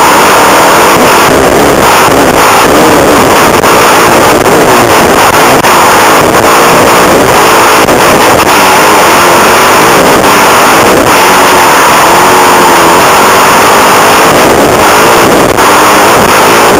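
Suzuki motocross bike's engine revving up and down, over and over, as it is ridden round a dirt track, heard from a camera on the bike or rider. The recording is overloaded, sitting at full scale the whole time.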